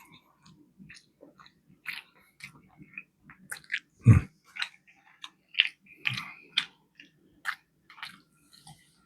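Close-miked chewing of a mouthful of food: irregular wet mouth clicks and smacks, with one louder, deeper thump about four seconds in.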